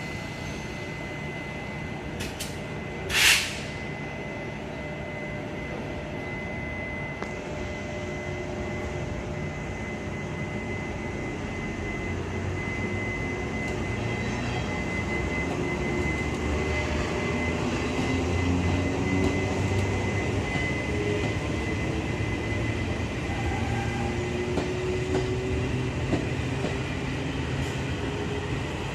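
Taiwan Railway parcel train pulling out of the station: a short loud hiss of air about three seconds in, then the train moving off with its running sound slowly growing louder and faint tones rising in pitch as it gathers speed.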